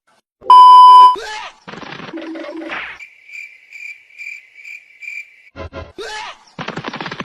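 Edited comedy sound effects: a loud steady beep tone about half a second in, then a jumble of short effects, then a high pulsing chirp like crickets for about two and a half seconds, and more short effects near the end.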